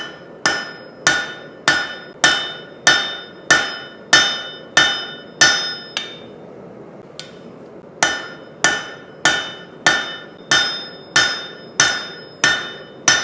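A blacksmith's hammer striking a steel blank being forged toward a sword, with steady blows about every 0.6 seconds, each with a bright metallic ring. The blows pause for about two seconds around the middle, then carry on at the same pace.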